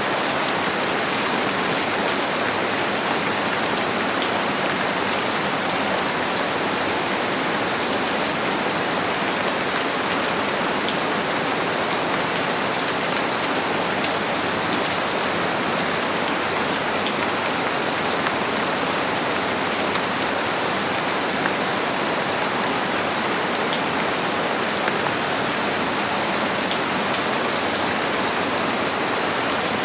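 Steady heavy rain falling, a dense even hiss with scattered individual drops ticking through it.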